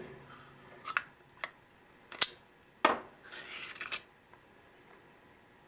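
Steel parts of an Ingram MAC-10 submachine gun being handled during field-stripping: a few sharp metal clicks and knocks, then, about three seconds in, a scrape of metal sliding on metal as the bolt and its recoil spring come out of the receiver.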